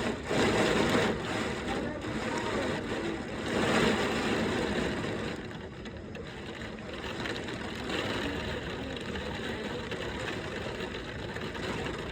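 Thunderstorm wind and heavy rain, a steady rushing noise that surges louder a few times in the first few seconds, then eases a little.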